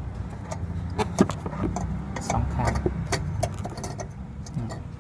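Scattered light clicks and scrapes as fingers work the wire spring retaining clip and the headlight bulb in a Mitsubishi Attrage's headlamp housing, releasing the bulb, over a steady low rumble.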